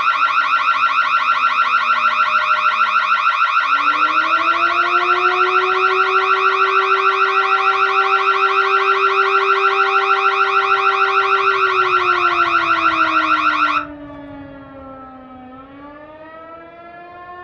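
Electronic burglar alarm: a high, fast-warbling alarm tone over a slower siren wail that falls, rises, holds steady and falls again. About 14 seconds in the warbling tone cuts off suddenly, leaving the quieter siren wail rising and falling on its own.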